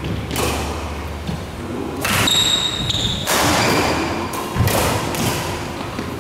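Badminton doubles rally: several sharp racket hits on the shuttlecock, one every second or so, each followed by a short echo in the hall. Between them come footfall thumps and brief high squeaks of court shoes on the floor.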